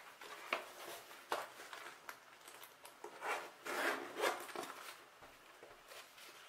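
Nylon drone carrying bag being handled: fabric rustling and rubbing with a few light knocks, and a zipper being pulled open about three to four seconds in.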